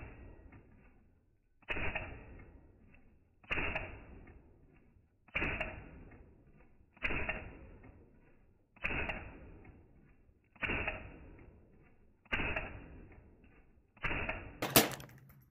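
Smith & Wesson M&P 15-22 semi-automatic rifle firing .22 LR Winchester M-22 rounds in slow aimed fire: eight shots, one about every two seconds, each cycling without a jam. A louder, sharper crack comes just after the last shot near the end.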